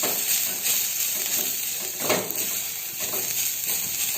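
Sliced carrots and onions sizzling in hot oil in a kadai, with a few short scrapes as they are stirred.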